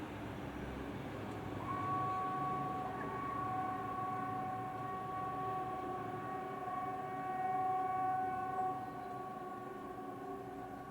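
Hesa Fredrik civil defence warning siren sounding its VMA test signal: a steady, chord-like note that comes in with a short rise about two seconds in and then holds, over a low background rumble.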